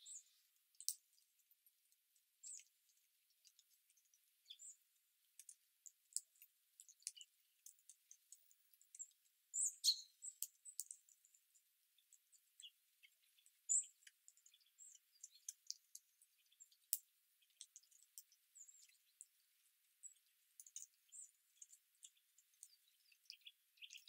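Small songbirds giving scattered short, high chirps and clicks, with a few louder calls about ten and fourteen seconds in.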